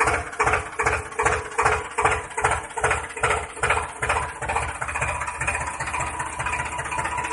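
An engine-like chugging, like an engine idling, pulsing about two and a half times a second, that smooths into a steady hum about four and a half seconds in.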